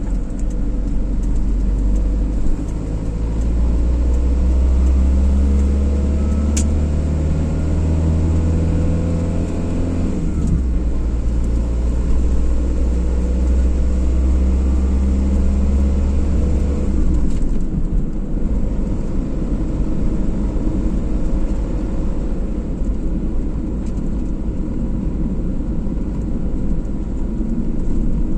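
Car driving on a road: steady engine and road noise. The engine note drops and shifts in steps a few times.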